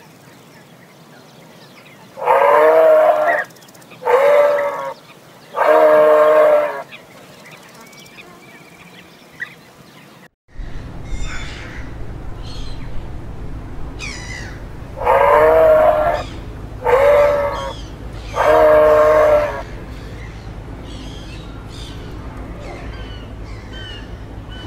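A moose calling: three loud drawn-out nasal calls, each about a second long, then after a pause the same three calls again.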